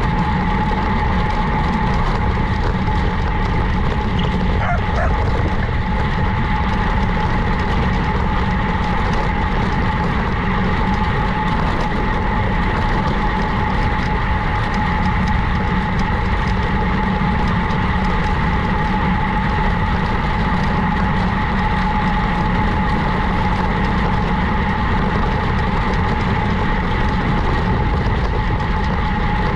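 Steady drone of a bicycle ride as picked up by the riding camera, a mix of tyre and wind noise with a constant high whine over it.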